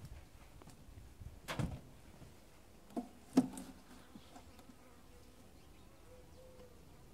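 Honeybees buzzing faintly in brief passes near the microphone, with a few sharp knocks, the loudest about three and a half seconds in.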